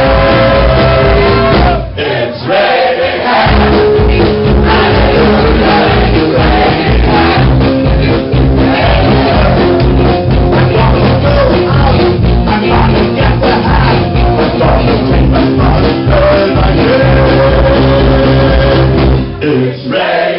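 Live country band playing loud, with a singer; the music drops out briefly about two seconds in and again near the end.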